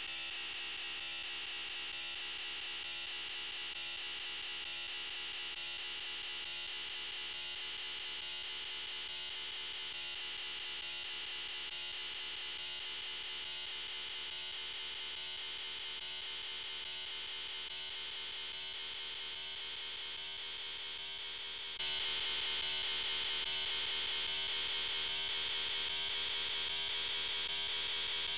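The 'I'm Peppa Pig' voice clip overlaid on itself a huge number of times, merged into a dense, steady drone no longer heard as words. Its pitch creeps slowly upward, and about three quarters of the way through it abruptly gets louder and brighter.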